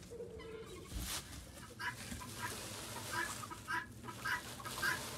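Chickens clucking in short calls that repeat about every half second to a second from about two seconds in. A single thump about a second in as the metal feeder is set down on the wood shavings.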